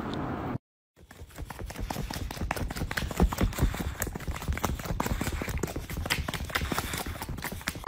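A dog's mouth noises right at the microphone: a rapid, irregular run of wet licking smacks and clicks as it licks a person's face.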